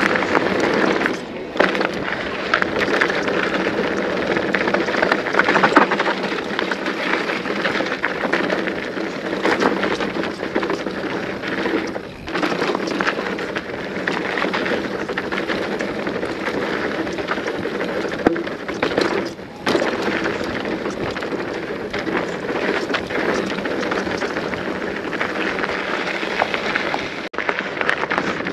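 Hardtail mountain bike riding down a dry, dusty, bumpy trail: tyres crackling over dirt and loose stones, and the bike rattling over braking bumps with no rear suspension. The noise eases briefly a few times.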